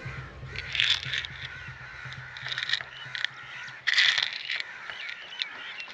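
Crows cawing, several harsh caws in a row, with the loudest about four seconds in.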